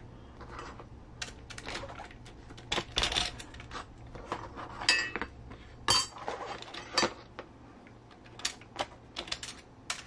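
Rock sliders, small screws and an RC crawler chassis being picked up, handled and set down on a work mat: irregular light clicks and clatters of hard parts.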